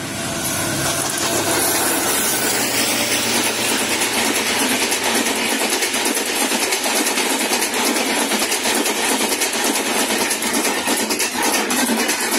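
WDG4 diesel locomotive passing close by: its engine rumbles for the first couple of seconds. Then a long rake of passenger coaches rolls past, a steady rush of wheel and rail noise with irregular clattering of wheels on the track.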